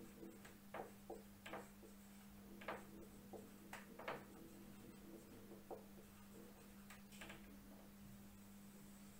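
Faint, irregular squeaks and scratches of a marker pen writing on a whiteboard, stroke by stroke, over a steady low hum.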